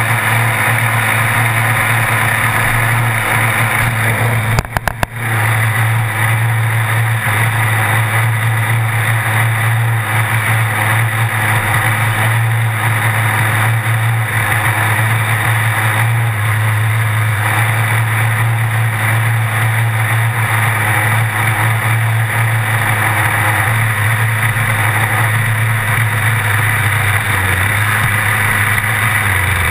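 Small two-stroke nitro engine of a 1/8 RC buggy, an HPI Trophy 4.6 with a Picco .28, idling steadily with the car standing still. It stutters briefly about five seconds in and cuts out right at the end.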